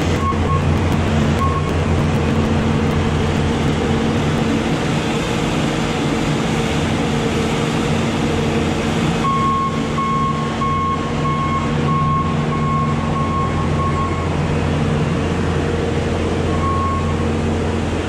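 Bobcat skid-steer loader's diesel engine running steadily under load as it lifts a heavy pallet of feed bags on its pallet forks. Past the middle its backup alarm beeps for several seconds as it reverses away.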